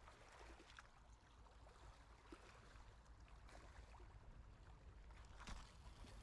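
Near silence: faint open-air background hiss with a few faint ticks, the clearest about five and a half seconds in.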